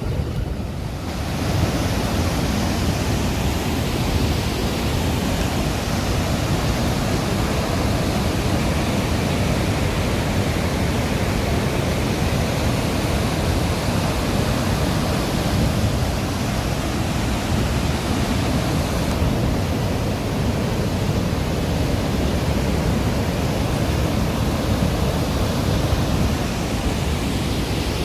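Steady rushing of the Rhine Falls, a large river waterfall, a dense unbroken noise heaviest in the low end; it swells up about a second and a half in and then holds.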